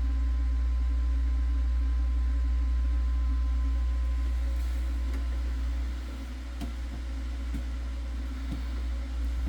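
Refrigerator compressor running after a sealed-system leak repair and R600a recharge: a steady low hum with a faint thin tone above it, a little quieter from about six seconds in, with a few faint ticks.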